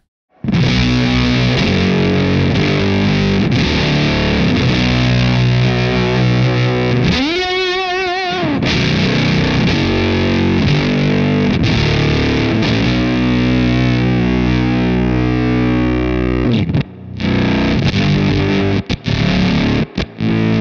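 Electric guitar with Jazzmaster pickups played loud through a Fender Shields Blender octave fuzz pedal with its sag control in use: thick fuzzed chords ringing out, a wavering pitch bend about seven seconds in, and the sound cutting out in short gaps near the end.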